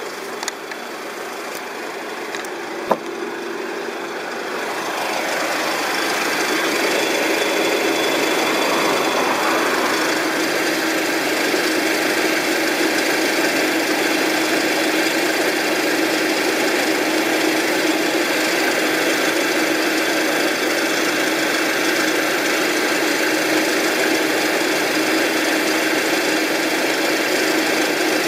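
Jeep Wrangler Rubicon engine running with a steady rattling clatter, the abnormal noise being recorded. It grows louder about five seconds in, when heard from beneath the vehicle near the oil pan and front axle.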